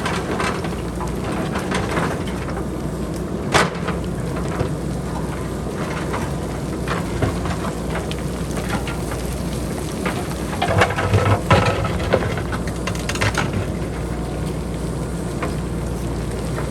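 Boulders and pebbles clattering and knocking as they tumble down a hillside, over the steady low running of a JCB backhoe loader's diesel engine. A single sharp knock comes about three and a half seconds in, and a dense burst of clatter comes around eleven seconds.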